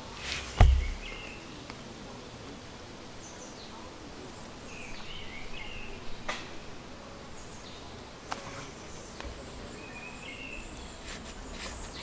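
Forest ambience: birds chirping now and then over a steady insect hiss. A sharp thump about half a second in is the loudest sound, with a couple of lighter clicks later.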